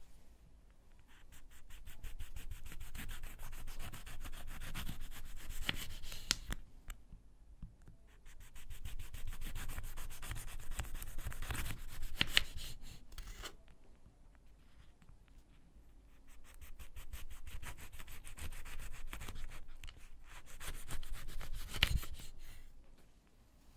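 Kitchen knife sawing back and forth through a lemon on a wooden cutting board, cutting it into thin slices. Several stretches of quick rasping strokes, each slice finishing with a sharp knock of the blade on the board.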